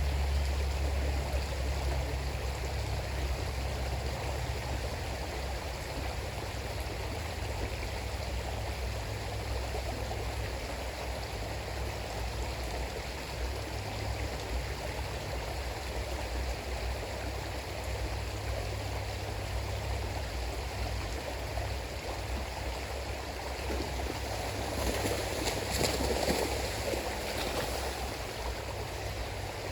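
River water flowing steadily in a continuous rushing, babbling stream, with a low rumble underneath. It swells louder and brighter for a couple of seconds near the end.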